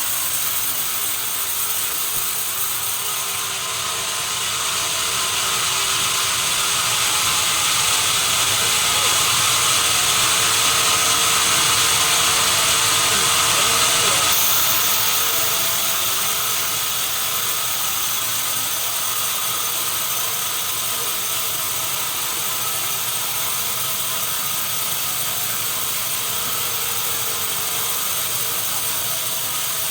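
Sawmill saw running steadily through timber, a dense mechanical whirr with a high, hissing edge that grows a little louder for several seconds in the middle.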